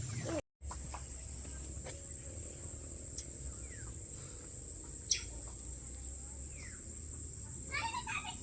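Countryside ambience: a steady high-pitched drone of insects, with a few short falling bird chirps and a low steady rumble underneath.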